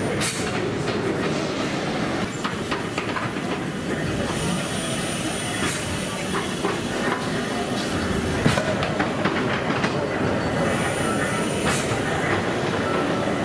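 Crossness Pumping Station's restored Victorian steam beam engine (the Prince Consort, built by James Watt & Co.) running slowly under steam: steady mechanical clanking and clicking of the valve gear and linkages, with a burst of steam hiss about four seconds in and again about ten and a half seconds in.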